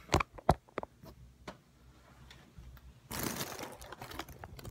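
Two sharp knocks at the start, then scattered small clicks and, about three seconds in, a second of crinkling and tearing as a cardboard blind box and its packaging are opened by hand.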